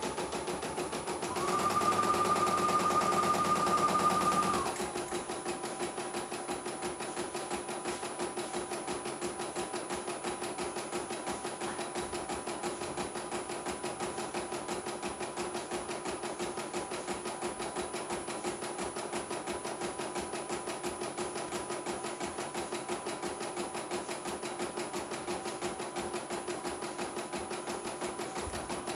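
CNY E900 portable computerized embroidery machine stitching a design: a rapid, even needle clatter, running smoothly. About a second and a half in, a louder stretch with a steady high whine lasts about three seconds before the plain stitching rhythm returns.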